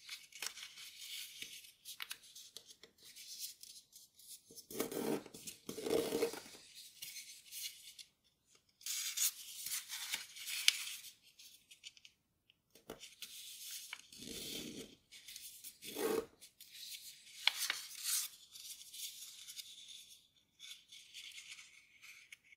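Grainy origami paper rustling and crinkling as hands fold and crease it, in stop-start bursts, with fuller rubbing sounds around five and fourteen seconds in.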